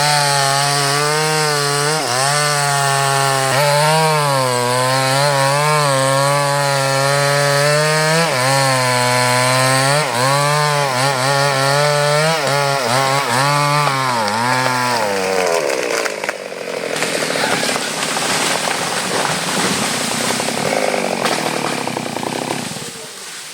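Chainsaw cutting durian wood, the engine note dipping and recovering again and again as the chain bogs in the cut. About fifteen seconds in the engine note falls away, and a rough noisy rush carries on for several seconds before fading.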